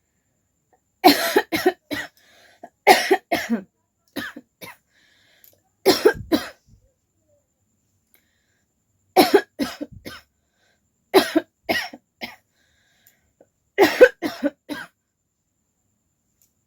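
A person coughing in short fits: about seven bursts of two to four quick coughs each, a second or more apart, with silence in between.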